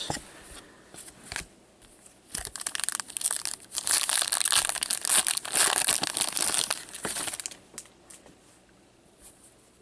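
A trading-card pack wrapper being torn open and crinkled by hand. The dense crackling starts about two and a half seconds in and stops about five seconds later, with a few light handling clicks before it.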